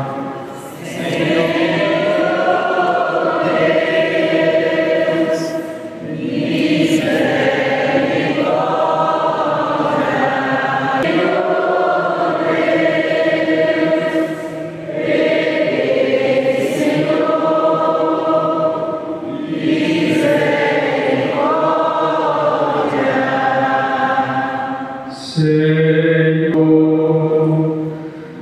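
A choir singing a slow hymn in long, held phrases, with brief pauses for breath between them.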